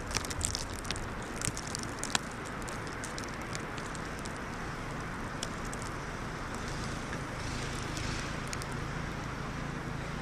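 Steady wind of a winter snowstorm blowing, with a few sharp crackles in the first two seconds.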